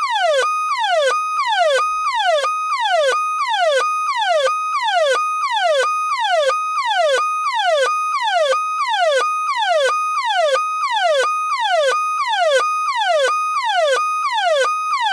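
The 2016 Ecto-1 siren looping: each cycle holds a brief high tone, then sweeps quickly downward, repeating about twice a second without a break.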